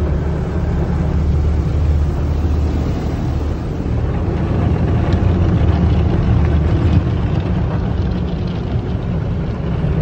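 Tunnel car wash heard from inside the car: a steady low rumble under the hiss of water and soap spraying over the body.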